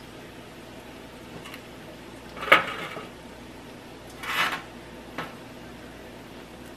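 A sharp metallic clink on a stainless steel cooking pot about two and a half seconds in, then a softer scraping rustle at the pot a couple of seconds later and a small tick, over a faint steady hum.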